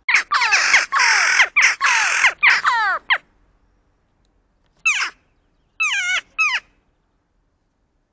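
Western jackdaws calling: a dense run of harsh, downward-sliding calls from several birds at once for about three seconds, then a single call and a quick pair of calls a little later.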